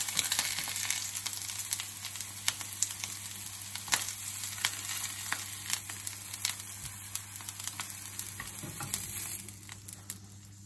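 Oil sizzling and crackling under artichokes searing flower-side down in a hot nonstick frying pan, with the spatula scraping the pan as they are lifted out. The sizzle dies away near the end, once the pan is empty.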